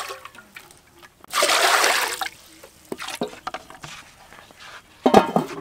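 Water poured from a plastic bowl into a large steaming metal cooking pot, splashing, loudest for about a second starting a second and a half in. A few light knocks follow, with a short louder clatter near the end.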